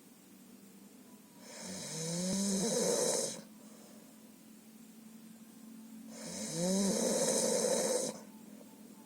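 A sleeping person snoring very loudly: two long snores about five seconds apart, each starting with a rising pitched rattle and turning into a harsh rasp.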